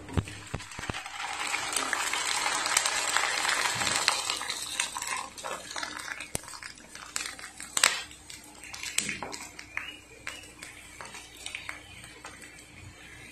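Sabudana (sago) papad deep-frying in hot oil in a small kadhai. The oil sizzles loudly for the first few seconds and dies down after about five seconds. Steel tongs click against the pan several times.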